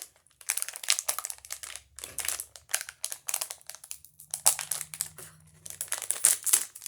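Blind-box packaging being opened by hand, its wrapping crinkling and rustling in irregular bursts.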